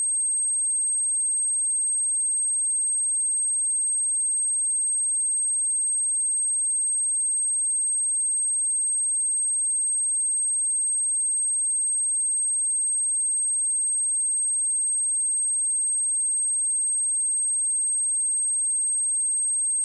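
A pure 8394 Hz sine-wave test tone, a single steady high-pitched whistle held at constant level, of the kind played to test speakers or to shake water and dust out of a phone speaker.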